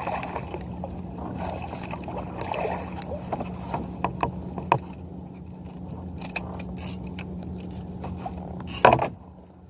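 Scattered clicks, knocks and scrapes of fishing gear being handled aboard a plastic kayak, over a steady low hum, with one louder burst near the end.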